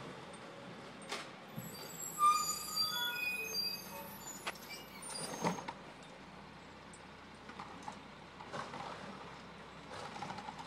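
Garbage truck driving away, its engine a faint steady hum, with a few sharp clicks and a scatter of brief high-pitched tones about two to four seconds in.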